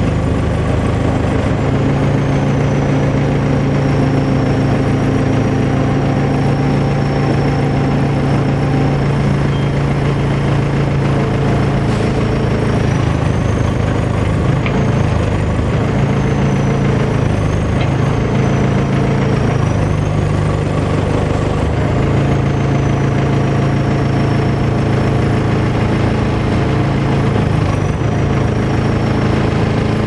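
Caterpillar 420 backhoe loader's diesel engine running steadily, heard from inside the cab while the backhoe boom and bucket are worked with the joystick controls. The engine note sags a few times about midway, and a thin high whine rises and falls throughout.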